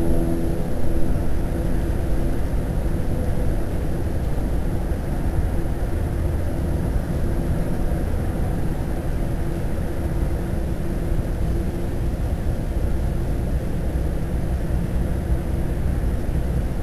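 A steady low rumbling noise with a fainter hiss above it, even throughout and without distinct events.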